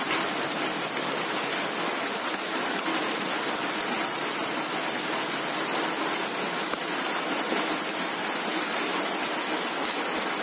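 Wood fire burning in an open hearth with fish roasting in the flames: a steady hiss with faint small crackles.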